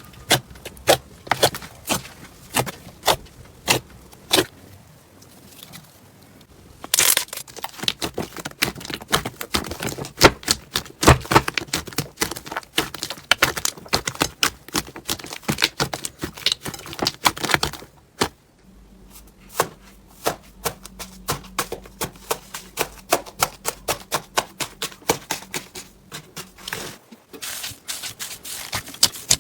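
Slime being squeezed and poked with the fingers, giving rapid runs of sharp crackling clicks and pops. Around two-thirds of the way through, the background changes and a faint steady hum sits under the clicks for several seconds.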